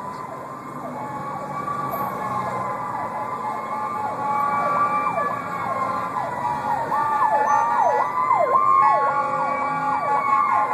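Fire engine sirens approaching and getting louder: a slow rising-and-falling wail, joined about halfway in by a faster repeating yelp.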